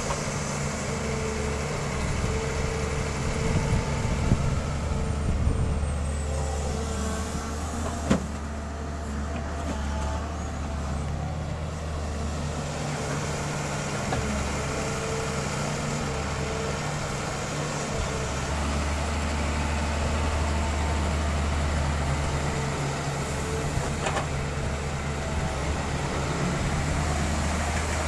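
Doosan 140 excavator's diesel engine running steadily, its low hum strengthening and easing as it works, with one sharp knock about eight seconds in.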